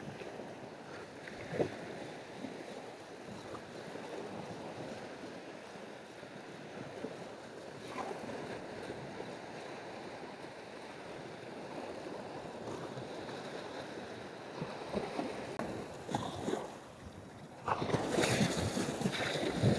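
Small waves washing up a sandy beach, with wind on the microphone; near the end a closer wave breaks and the surf gets louder.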